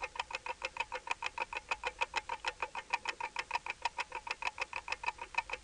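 Rapid clock-ticking sound effect, about eight even ticks a second, stopping abruptly near the end; it goes with a sped-up clock graphic and marks time passing.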